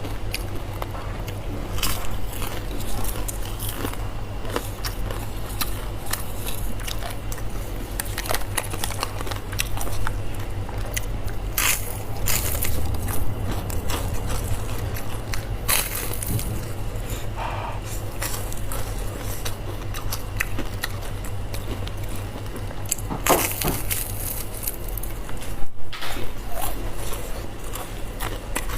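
A person biting and chewing crunchy food close to the microphone, with irregular crunches and crackles.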